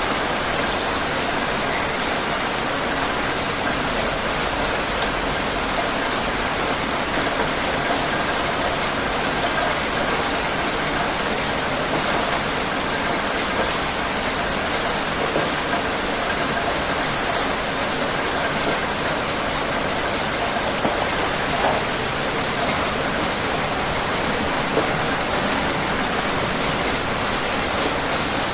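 Heavy rain falling steadily on a surface, a constant dense hiss with scattered faint drop ticks.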